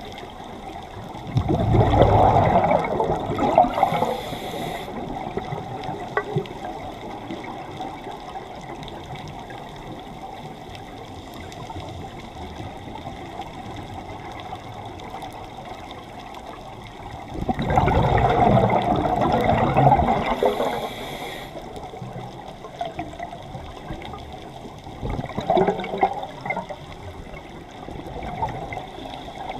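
Scuba diver's exhaled breath bubbling out of the regulator underwater, heard three times: two bursts of a few seconds each and a shorter, weaker one near the end, with a steady underwater hiss in between.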